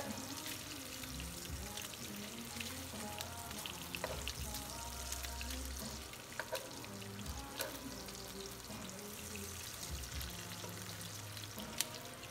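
Chopped bacon frying in a nonstick skillet: a steady sizzle dotted with small pops and crackles. Metal tongs clink and scrape lightly against the pan as the pieces are separated.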